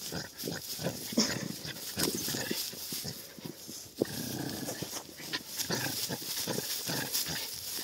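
A dog growling and grunting in short, irregular spells while it tugs at something it has snatched and won't give up.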